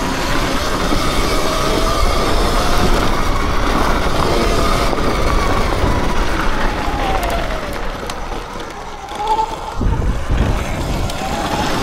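Sur-Ron electric dirt bike being ridden: the electric motor's whine rises and falls with the throttle over a low rumble of wind and ground noise. A couple of low thumps come about ten seconds in.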